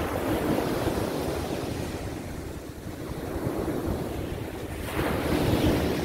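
Small sea waves breaking and washing up a sandy beach, two breakers about five seconds apart, each a swelling rush of surf. A steady low rumble of wind on the microphone runs underneath.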